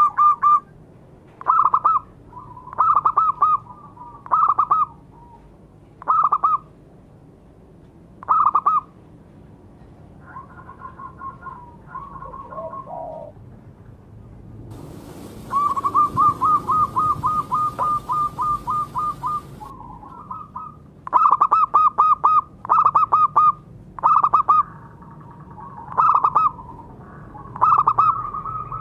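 Zebra dove (perkutut) cooing: loud phrases of short, high staccato coo notes repeated every second or two, with a quicker, even run of notes in the middle. A fainter phrase that drops lower comes about ten seconds in, and a steady hiss sits behind the middle run.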